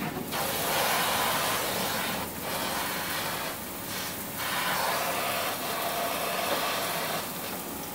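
Water spraying hard from a handheld shower head fed by an instant electric water heater's built-in pump: a steady rushing hiss that dips briefly a couple of times.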